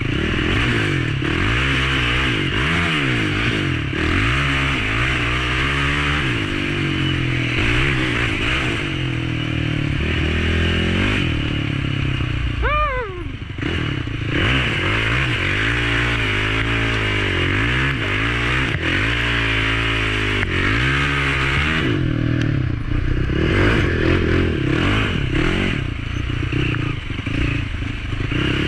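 Built 450 four-stroke dirt bike engine revving up and down under hard riding in second and third gear, its pitch rising and falling every second or two. A steady hiss runs over it.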